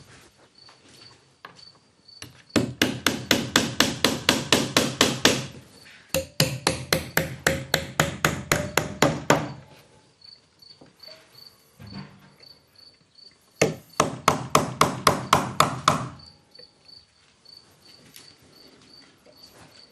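Three bursts of rapid pounding blows on wood, about four or five a second, each burst lasting a few seconds, with quieter knocks between them. A cricket chirps steadily and faintly underneath.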